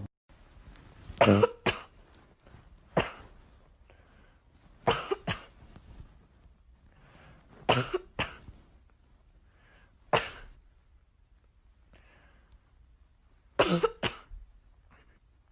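Repeated short coughs, one or two at a time, every couple of seconds.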